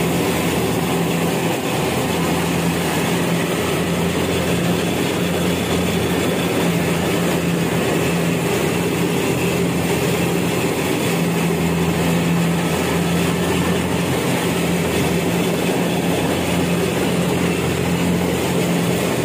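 Rice combine harvester's diesel engine running steadily, a constant low drone with the dense mechanical clatter of the working machine over it.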